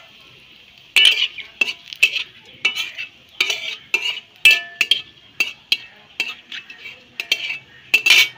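A flat metal spatula scraping and clinking against a large metal kadai, stirring bay leaves in hot oil. The strokes start about a second in and come about twice a second, some with a short metallic ring.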